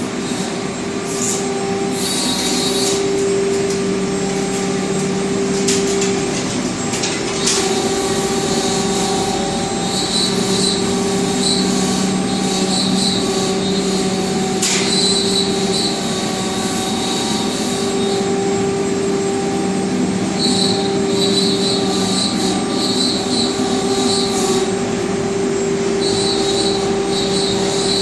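CNC router cutting MDF wall panels: a loud, steady machine whine with a low hum underneath, and a high hiss that comes and goes in patches.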